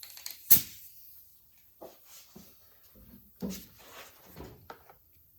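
Welder laying short tack welds into a rust hole in thin hood sheet metal: a series of brief, sharp crackling bursts, the loudest about half a second in, then about six more spaced irregularly.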